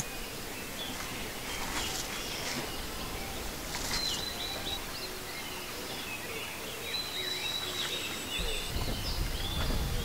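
Several small birds chirping and singing in short whistled notes, some sweeping in pitch, over a faint steady outdoor hiss. A low rumble comes in near the end.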